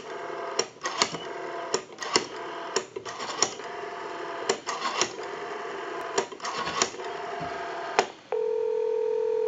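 Western Electric 500 rotary dial being turned and returning, its clicks heard over the amplified phone line, as a number is dialed. About eight seconds in, a steady ringback tone comes on the line for about two seconds: the call has gone through and is ringing.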